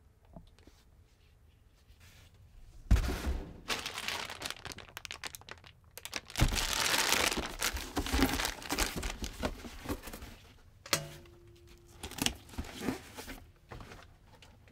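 Plastic mushroom grow bag crinkling as it is handled and set into a cardboard box, starting with a thump about three seconds in. Near the end come a few knocks and rustles of cardboard as the box flaps are folded shut.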